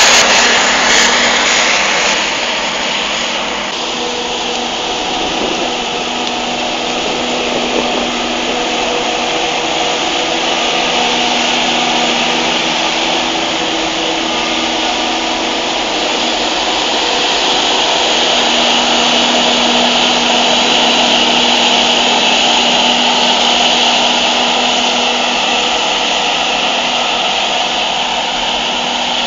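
Claas Jaguar 980 self-propelled forage harvester chopping maize for silage, with the tractors pulling the trailers alongside running too. It makes a loud, steady hiss over a low hum, little changing in level.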